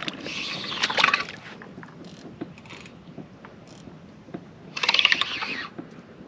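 Fishing reel winding in line in two bursts of fast, fine clicking, one at the start and another about five seconds in, as a hooked wels catfish is brought in on the leader.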